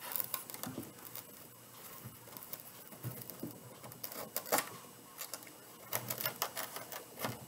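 Scratchy, crackling handling noise of a burlap-ruffle wreath on a foam board as a pipe cleaner is pushed through the board. It comes as irregular clusters of clicks and scrapes, near the start, about four seconds in, and again about six seconds in.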